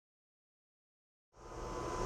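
Dead silence, then about a second and a half in a steady background hum and hiss cuts in.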